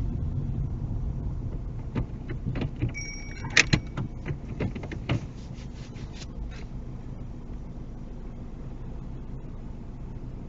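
Low rumble of a car's engine and road noise, heard from inside the cabin as the car slows to a standstill. About two seconds in comes an irregular run of clicks and knocks, with a brief high tone, lasting some four seconds.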